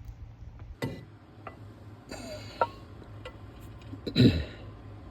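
Metal clinks and knocks of an AC compressor bracket being test-fitted against the engine, with a light scrape and a louder thump about four seconds in, over a low steady hum.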